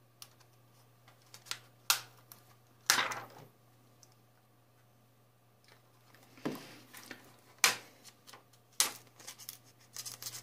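Scattered sharp clicks and short scrapes of a plastic pry pick working around the edge of a Xiaomi Mi 11 Lite's adhesive-bonded back cover, along with the phone being handled and turned. There is a quieter stretch in the middle, and the clicks come more often near the end.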